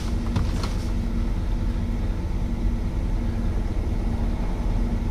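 A vehicle engine idling: a steady low rumble with an even hum.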